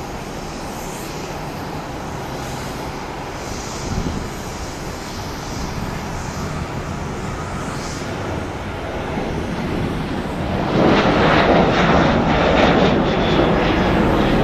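Boeing 737-700's CFM56-7B turbofan engines at takeoff thrust as the jet rolls, lifts off and climbs out. A steady rumble grows slowly louder, then becomes much louder and ragged, crackling about eleven seconds in.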